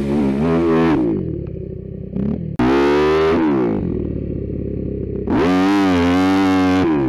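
Kawasaki KX250F four-stroke single-cylinder dirt bike revved hard in three bursts, each falling back to a lower running note, its rear wheel spinning in loose dirt.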